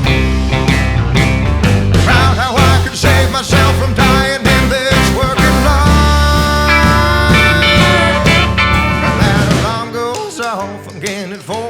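Background music: an instrumental stretch of a rock song with bass and drums under pitched lead lines. About ten seconds in the bass and drums drop out, leaving a lighter passage.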